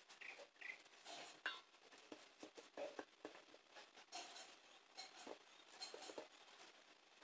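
Faint scraping and short clicks of a small knife peeling and slicing a potato and squash by hand, with pieces dropping into a steel bowl.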